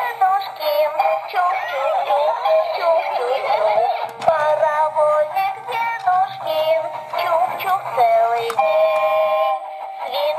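Electronic toy train playing its built-in song through a small speaker: a synthesized sung melody with backing music.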